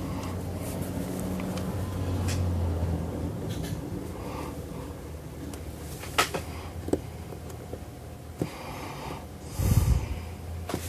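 Bench handling noise: a few sharp clicks and taps from multimeter test probes and parts being set up for an LED diode test, over a steady low hum. A short breath comes near the end.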